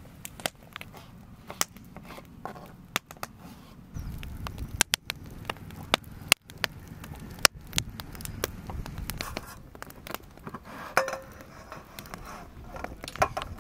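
Wood campfire crackling, with sharp pops and snaps scattered throughout and a low rush of flames in the middle.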